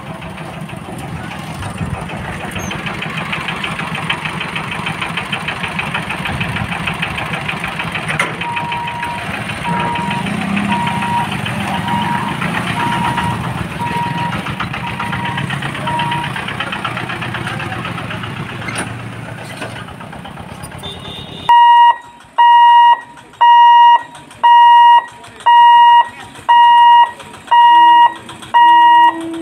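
Steady rumble of trains and idling motorbike engines at a railway level crossing, with a faint beeping warning tone partway through. About 21 seconds in, a loud electronic warning alarm starts, beeping about once a second in one steady high tone: the crossing's gate-closing alarm.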